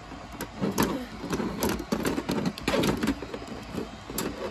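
Plastic toy wrestling ring, ladder and action figures being handled, with irregular knocking, rattling and rustling and a few sharp clicks.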